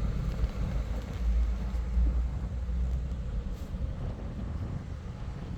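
Gusty wind buffeting the microphone: a low rumble that swells about a second in and eases off toward the end.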